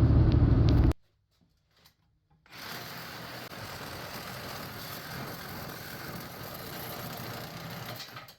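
A saw blade cutting steadily through the steel handle rod of a vise lead screw. The blade is dull enough to call for a new one. The first second holds a loud low hum that stops abruptly, then a short gap before the steady cutting sound begins.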